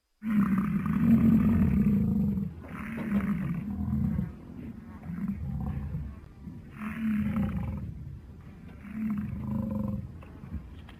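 A large bovine bellowing: a string of about five deep calls, roughly one every two seconds. The first two are the loudest, and the calls begin suddenly out of silence.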